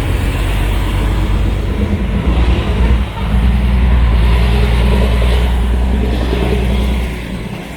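A motor vehicle's engine running close by: a steady low rumble that dips briefly about three seconds in and fades about seven seconds in, over general street noise.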